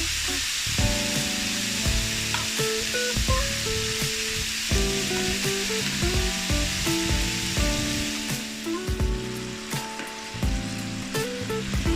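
Samgyeopsal pork belly sizzling steadily as it fries, with a few sharp pops or ticks, over background music with a stepping melody.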